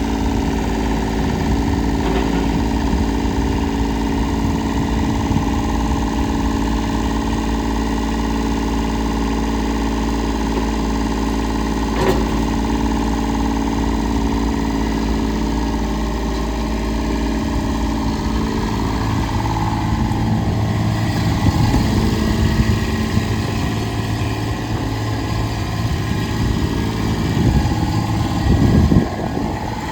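Ditch Witch SK800 walk-behind skid steer's engine running steadily; about two-thirds of the way through its note changes and becomes uneven, swelling louder in a few surges near the end.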